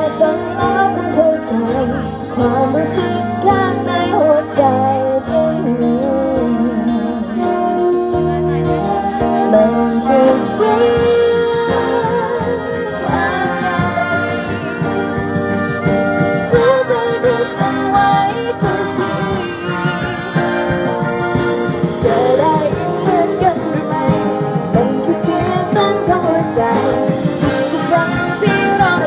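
Live band music: a woman sings a melody into a microphone through a PA speaker, with a wind band including saxophones playing chords under her voice.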